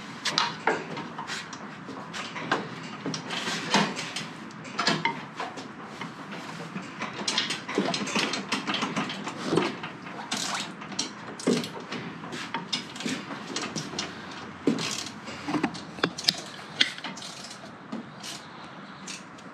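Irregular clinks, clicks and knocks of metal parts and hand tools being handled while a Jungle Boot wheel-holder bracket is fitted to a wooden trailer deck.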